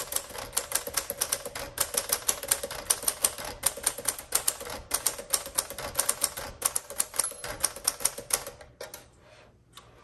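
1952 Smith Corona Sterling manual typewriter being typed on at a steady pace, the typebars striking the paper about five times a second. The typing stops just under nine seconds in.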